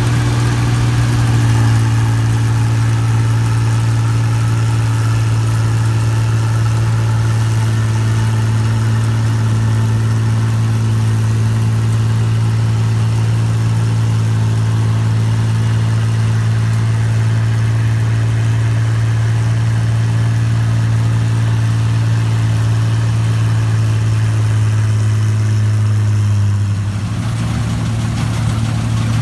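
New Holland Clayson 1545-S combine harvester's engine running steadily at a constant note. Near the end the note changes and the level drops slightly.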